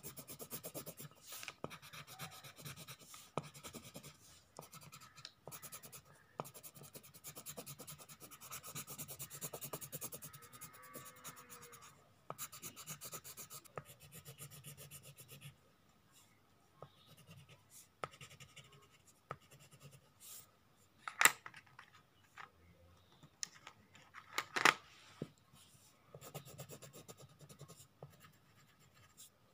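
Coloured pencil scratching fast back and forth on paper as a drawing is shaded in, in stretches with short pauses. Two sharp clicks stand out in the latter half.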